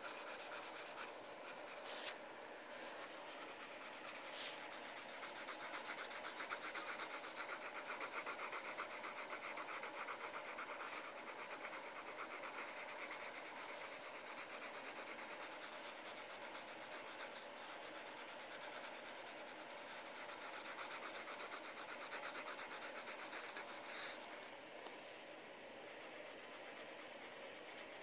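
Graphite pencil scratching on paper in quick, even back-and-forth strokes, with a few louder clicks along the way.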